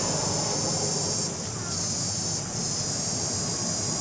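A steady, high-pitched chorus of cicadas buzzing in the trees, dipping briefly a couple of times, over a low steady hum.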